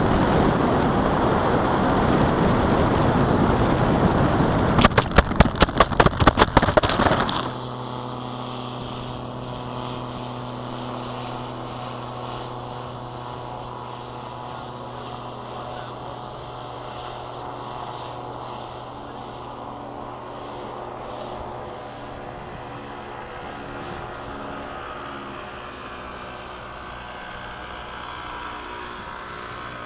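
Wind rushing over a small FPV model aircraft's onboard microphone, with a rapid run of sharp knocks about five seconds in. After about seven seconds the rushing stops abruptly and gives way to a quieter steady hum of several held tones.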